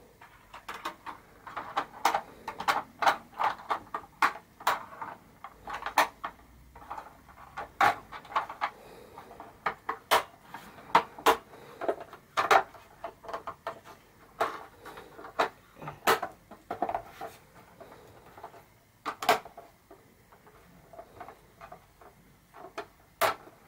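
Hard plastic clicking and knocking from hands working on an 18-inch Neewer ring light, fitting its curved snap-on orange filter cover onto the ring. The clicks come at an irregular pace, several in quick runs, with a few short pauses.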